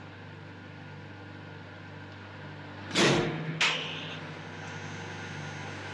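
Steady low electrical machine hum. About three seconds in it is broken by two sudden loud bursts of machinery noise about half a second apart, the second trailing off with a brief high tone.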